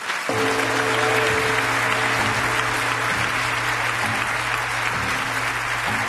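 Studio audience applauding over a music jingle with long held notes, both starting just after the start.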